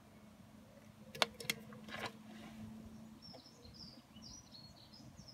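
Two sharp clicks a little over a second in, then a brief clatter, from a sealant caulking gun being handled and set aside. Birds chirp faintly through the second half.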